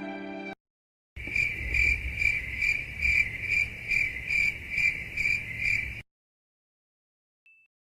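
Cricket chirping sound effect: a high chirp repeating about twice a second for roughly five seconds, starting about a second in and cutting off suddenly.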